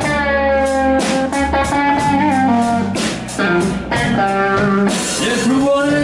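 Live slow blues: a Fender Stratocaster plays a lead fill of sustained, bent notes, over bass guitar and drums, between sung lines.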